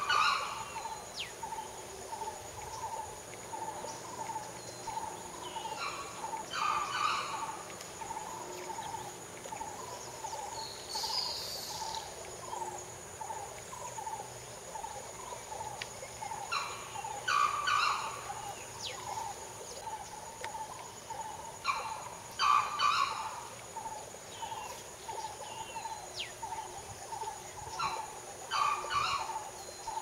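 Wild bird and insect sounds: a steady high insect drone, a soft call repeating about twice a second, and a bird giving short, louder call phrases several times, about every five seconds.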